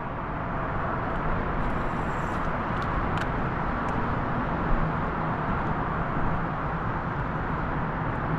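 Steady rushing noise with a faint low hum underneath, and a few faint ticks.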